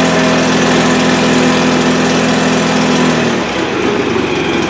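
Honda H4518 hydrostatic lawn tractor's engine running just after being started, sounding as it should. About three seconds in its steady note drops away to a rougher, lower running sound.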